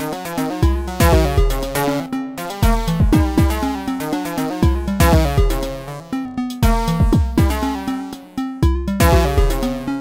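An Elektron Model:Cycles FM groovebox playing an improvised electronic pattern: a repeating kick drum whose pitch drops on each hit, under short pitched FM synth notes.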